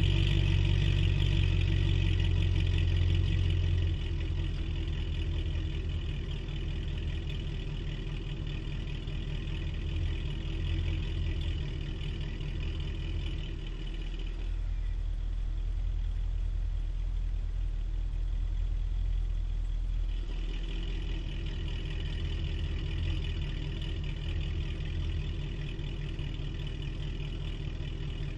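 A 2011 Cadillac CTS-V's supercharged 6.2-litre V8, fitted with headers and exhaust cutouts, idling steadily. It drops in level about four seconds in, then sounds more muffled for several seconds past the middle, with the exhaust cutouts closed.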